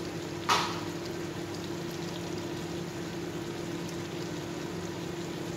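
Chicken and sauce simmering in a wok over a gas burner, a steady hiss of the cooking over a low hum. One brief loud sound cuts in about half a second in.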